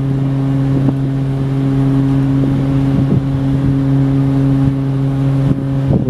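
BC Ferries ship's horn sounding one long, steady low blast that cuts off near the end.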